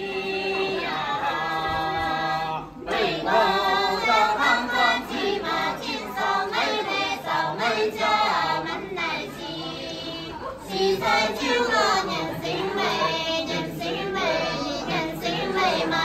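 A group of women singing a Dong toasting song together in chorus, with a short break about three seconds in.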